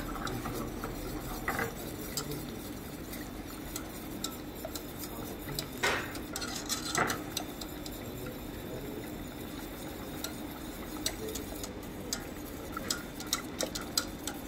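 Wire whisk stirring thick pumpkin porridge in a stainless steel saucepan, its wires clicking and scraping against the side of the pot, with a few louder knocks about six and seven seconds in. A steady low hum runs underneath.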